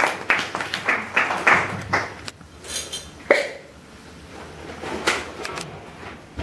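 A few scattered hand claps in the first two seconds, then occasional knocks, clicks and clatter of objects being handled, with one sharp click a little over three seconds in.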